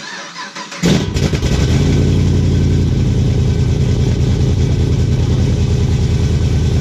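A cammed, straight-piped 6.2-litre V8 of a Camaro SS fires up about a second in after brief cranking. It settles into a loud, choppy idle through the open exhaust.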